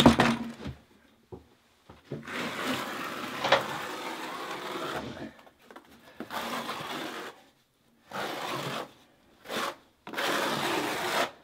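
Notched trowel scraping and combing wet modified thin-set mortar across a plywood subfloor: a sharp knock at the very start, then a run of scraping strokes, the first about three seconds long and the rest about a second each, with short pauses between.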